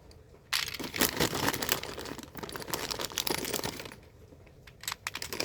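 Plastic bags of Lego pieces being handled, crinkling and rustling with many small clicks. The sound starts about half a second in and pauses briefly near the end.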